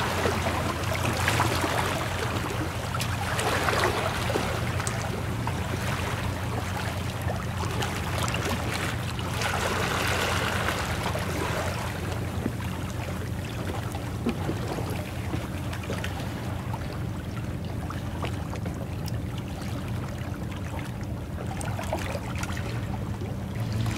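Sea water washing and trickling among concrete breakwater tetrapods, with wind rumbling low on the microphone.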